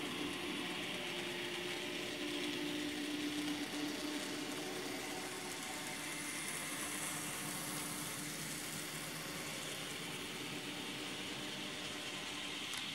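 Model railroad locomotives running past on the layout: a steady motor hum over the whir of wheels on track. The hum fades about six seconds in as the locomotives go by and the freight cars follow, running smoothly.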